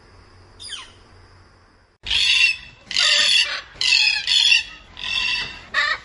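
A northern flicker gives one short falling call under low background hiss. About two seconds in, a red-tailed black cockatoo starts a run of five or six loud, harsh calls, each about half a second long.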